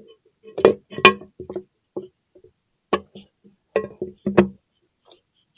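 Metal clinks and knocks as the aluminium clutch cover is handled and seated against the engine case, about seven separate hits, each ringing briefly with the same pitched tone.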